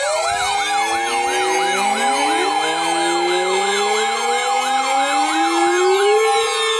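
Several weather alert radios sounding their alarms at once for a severe thunderstorm warning. Overlapping electronic siren tones: a fast repeating yelp over a steady tone, with slower wails gliding upward.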